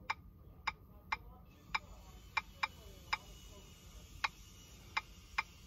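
Key-press clicks from the on-screen keyboard of a TOPDON Phoenix Plus diagnostic tablet as a street name is typed: about ten short, identical clicks at an uneven typing pace.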